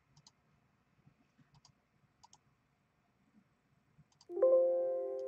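Faint computer mouse clicks, a few scattered over several seconds. About four seconds in, a sudden ringing sound of several steady notes starts, the loudest thing here, and fades away over about a second and a half.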